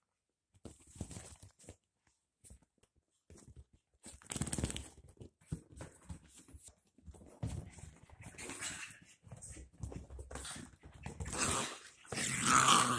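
Two dachshund puppies play-wrestling on a leather couch: irregular scuffling of paws and bodies on the leather mixed with small puppy vocal sounds, busiest and loudest near the end.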